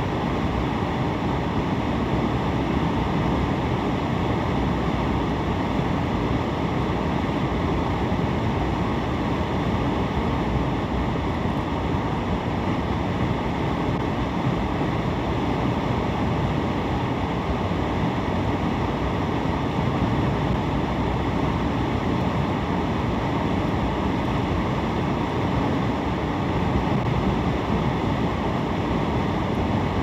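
Steady road and tyre noise of a car driving on a highway, heard from inside the cabin: an even, low noise with no breaks or changes.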